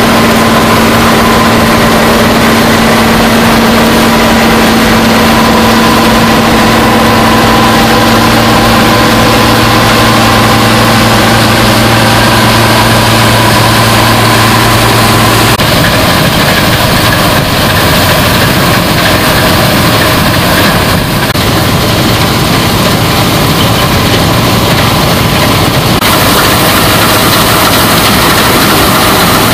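Bizon Super Z056 combine harvester threshing rapeseed: its SW-680 diesel engine and the threshing and header drives running steadily under load. The steady hum changes abruptly about halfway through and again near the end.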